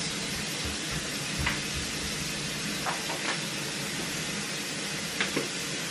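A steady, even hiss with a few faint, short clicks scattered through it.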